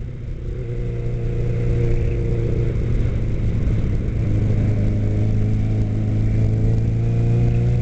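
2006 Suzuki Katana 600's inline-four engine pulling in fourth gear under throttle. The engine note builds in loudness over the first couple of seconds, then holds a steady pitch.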